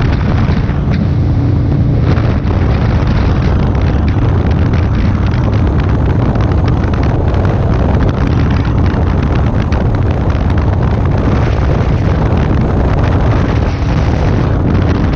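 Motorcycle engine running steadily at cruising speed, buried in heavy wind buffeting on the microphone.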